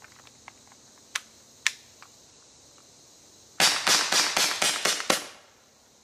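Umarex TR50 .50 calibre CO2 revolver fired in a fast string of about six or seven sharp pops in under two seconds. Before the shots come two short clicks as the revolver is handled.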